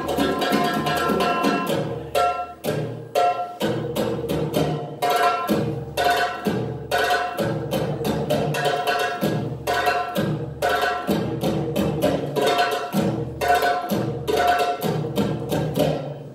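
Recorded oriental drum solo music for belly dance: darbuka-style hand drums beat a fast, driving rhythm, with short breaks in the pattern.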